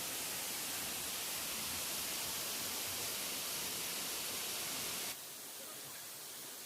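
Steady rushing of falling water, an even hiss strongest in the high range, that drops abruptly to a lower level about five seconds in.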